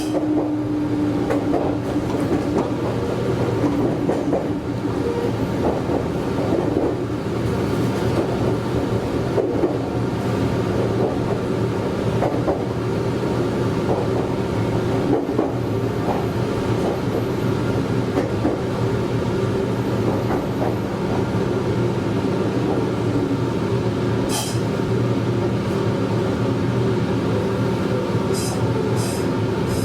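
Meitetsu 100 series electric multiple unit heard from the cab, slowing into a station. A motor tone falls in pitch over the first few seconds. Steady hum and wheel-on-rail knocks follow, with a few short high clicks near the end.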